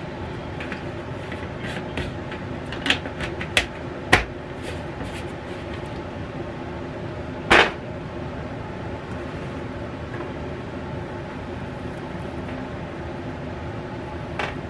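Kitchen handling sounds at the stove: a few light clicks and taps in the first four seconds and one louder knock about seven and a half seconds in, over a steady hiss from the lit gas burners and simmering pots.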